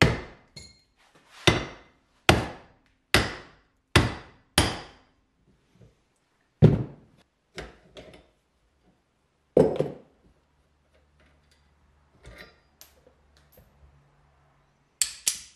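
Hand hammer striking a steel front suspension steering knuckle clamped in a bench vise to drive out a ball joint. There are about seven sharp metallic blows in the first five seconds, two more a few seconds apart, and then only faint clinks of metal being handled.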